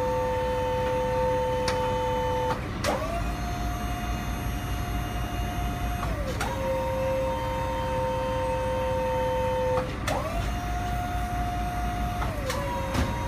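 Tow truck hydraulic pump whining steadily, its pitch dropping to a lower tone and back about every three and a half seconds, with a sharp click at each change, four changes in all.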